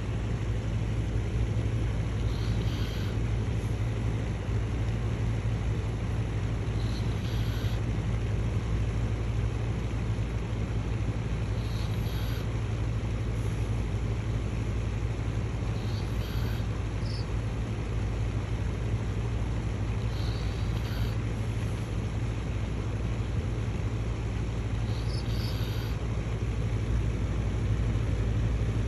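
Golden retriever snoring in its sleep, a short wheezy snore about every four to five seconds, over a steady low rumble.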